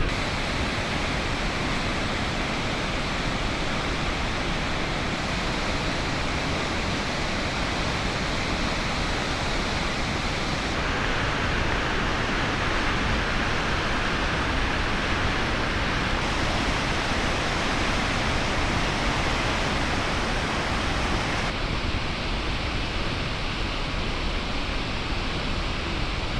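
Waterfall roaring: a steady, dense rush of falling water with no rhythm. Its tone shifts abruptly three times, about a third of the way in, in the middle and about four fifths of the way in.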